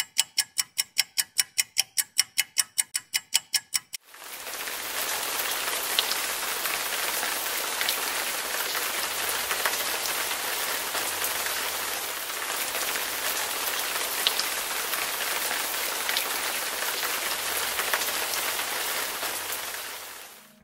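Rapid, evenly spaced clock-like ticking, about five ticks a second, which stops after about four seconds. Then a steady hiss of rain sets in, with scattered drop ticks.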